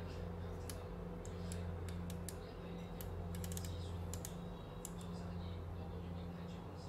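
Rotary control knob of a Siemens iQ700 built-in microwave oven being turned, giving a run of light, irregular clicks as it steps the timer setting down. A steady low hum runs underneath.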